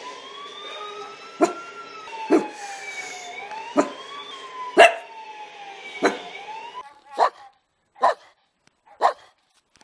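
A Cavalier King Charles Spaniel gives about five sharp barks while a siren wails, rising and falling, behind it. The siren stops abruptly, and then a small black-and-tan dog barks about once a second, three times, near the end.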